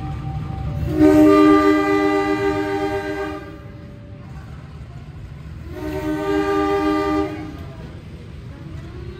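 Air horn of a KAI CC201 diesel locomotive sounding two blasts, a long one of about two seconds and then a shorter one, over the low running of its diesel engine.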